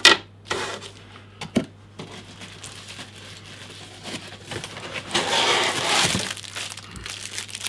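Cardboard packaging and plastic bags rustling and crinkling as items are pulled out of a box, with a few sharp knocks in the first two seconds. The rustling is loudest from about five to six seconds in.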